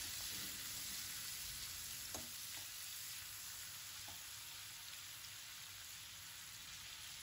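Prawns frying in hot coconut oil on high flame, a steady sizzle that slowly gets quieter, with a few faint clicks in the middle.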